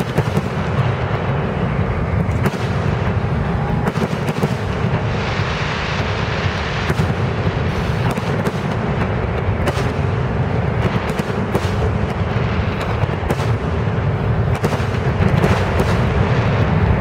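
Grucci aerial fireworks display: shells bursting in a continuous barrage of booms and sharp cracks over a steady rumble, growing a little louder near the end.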